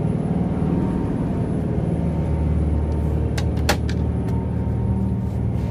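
Steady low drone of the boat's engine, heard inside the cabin. A couple of sharp clicks from the cabin door's latch come a little over three seconds in.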